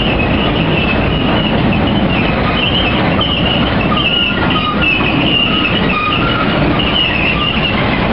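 Freight train cars, empty centerbeam flatcars and boxcars, rolling past at speed: a steady rumble and rattle of wheels on rail, with a high wheel squeal that comes and goes every second or so.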